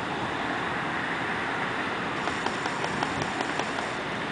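Steady hum of distant road traffic heard from high up, mixed with wind on the microphone, with faint light ticks from about halfway through.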